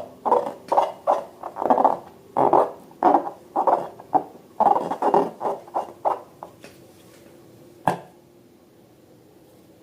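Slime squished and worked by hand, a run of short squelches about two a second that stops about two-thirds of the way through, followed by a single sharp click.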